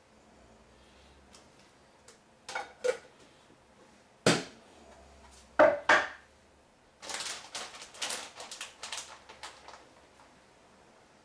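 Kitchen clatter from handling food containers over a frying pan: several sharp knocks over the first half, then a run of quick clicking and crackling for about three seconds.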